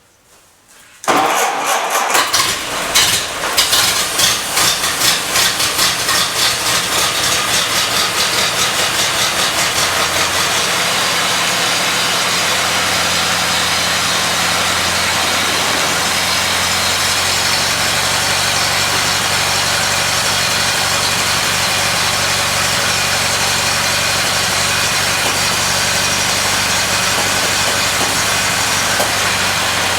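1931 Ford Model A's four-cylinder flathead engine starting about a second in with the new parts fitted. It runs unevenly at first, then settles to a steady idle after about ten seconds.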